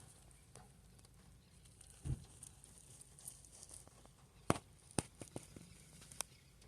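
Quiet outdoor background with a handful of short sharp taps, the loudest about four and a half seconds in.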